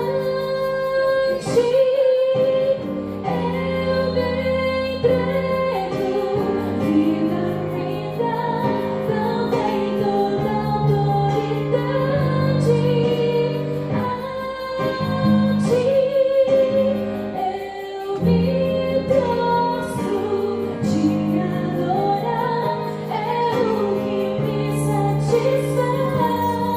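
Music: a song with a female singing voice carrying a melody over sustained keyboard chords, starting abruptly.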